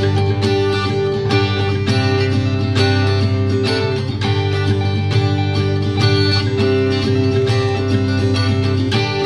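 Instrumental music: strummed acoustic guitar with a steady beat, playing a passage of a song without singing.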